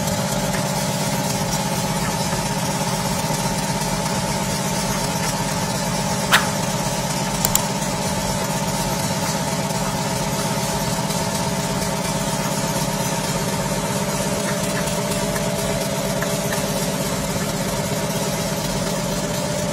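Open-type Dorin 30 HP refrigeration compressor, belt-driven by a 15 HP electric motor, running steadily on R22 with an even hum. A sharp click comes about six seconds in and two smaller ones about a second later.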